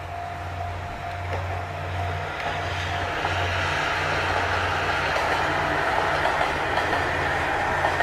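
Two-car JR KiHa 40 series diesel railcar passing close by: a low, pulsing diesel engine throb with the rushing rumble of the wheels on the rails. It grows louder over the first three seconds and then stays loud as the train goes past.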